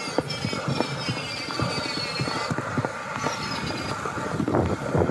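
Kick scooter being ridden on a concrete footpath: the wheels roll with a steady whir and a rattle of small clicks and knocks as they pass over the pavement's texture and joints.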